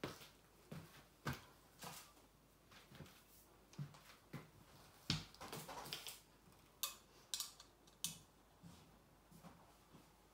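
Scattered light knocks and clicks as a wooden changing-table leg and the plastic fitting on its end are picked up and handled during assembly.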